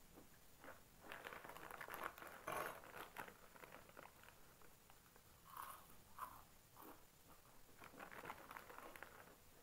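Quiet crinkling and crunching: a foil Lay's potato-chip packet rustling as a hand reaches in for chips, and chips being chewed, in several short crackly spells.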